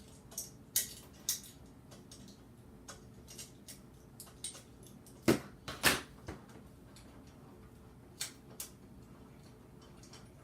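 Small metal C-clamps being unscrewed and taken off a glued bow limb: scattered light clicks and clinks, with two louder knocks about five and six seconds in.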